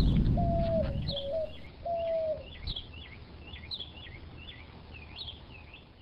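Birds chirping: short, high, gliding chirps repeated every half second or so, with a lower two-note call heard three times in the first two and a half seconds. A low rumble dies away in the first second, and the whole sound fades out at the very end.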